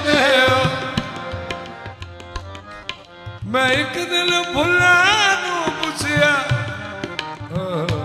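Qawwali music: a male lead singer's long, wavering melismatic lines over sustained harmonium chords and tabla strokes. The voice eases off for a moment around two to three seconds in, then comes back strongly.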